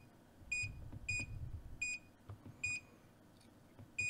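BSIDE 09 handheld oscilloscope multimeter giving key-press beeps as its arrow buttons are pressed to move a cursor. Five short high beeps come at uneven intervals, each with a faint button click.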